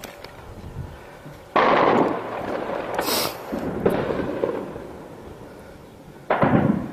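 Shelling heard at a distance: two loud blasts about five seconds apart, each starting suddenly and rolling away in a long echo, with a lesser bang between them.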